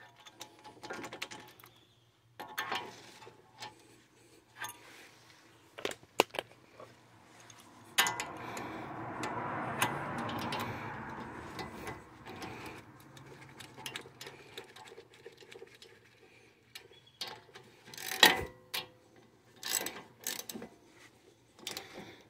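Hand ratchet clicking as a socket turns a bolt on a car's front suspension, in runs of quick clicks with metal taps and knocks. The loudest knock comes about 18 seconds in.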